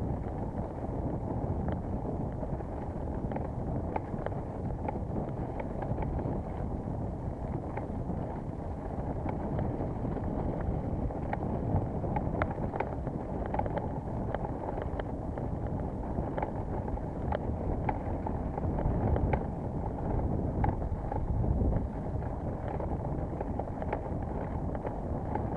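Wind rushing over the microphone of a camera riding on a mountain bike, with scattered light clicks and rattles from the bike on rough ground.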